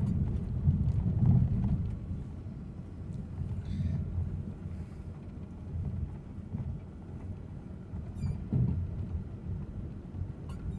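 Low rumble of a car's engine and tyres on the road, heard from inside the cabin while driving; a little louder for the first two seconds.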